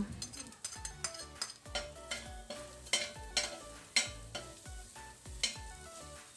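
Metal spoon stirring minced garlic and ginger frying in hot oil in a stainless steel pot: a light sizzle with irregular scrapes and taps of the spoon against the pot. Soft background music runs underneath.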